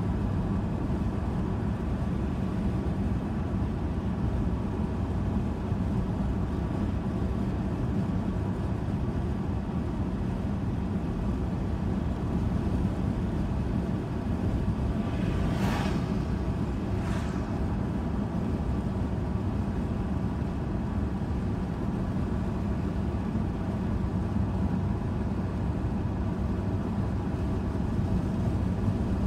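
Steady road and engine noise inside a moving car's cabin, with two brief whooshes about a second and a half apart midway through as oncoming vehicles pass.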